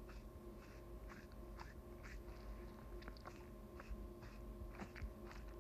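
Faint steady hum with soft, irregular ticks about twice a second.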